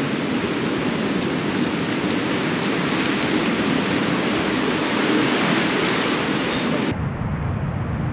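Sea water washing and sloshing around the barnacle-covered pilings under a pier, a steady rush of waves. Near the end it abruptly gives way to a duller, lower rush.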